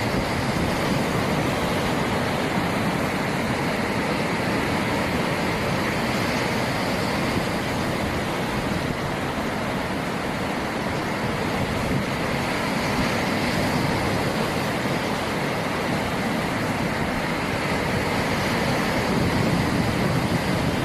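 Ocean surf: a continuous, even wash of breaking waves with no distinct swells, growing slightly louder near the end.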